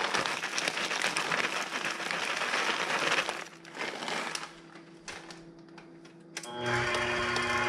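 A plastic bag of chocolate chips crinkling as the chips are shaken out and rattle into a stand mixer's stainless steel bowl for about three seconds. Near the end a KitchenAid stand mixer switches on and runs with a steady hum.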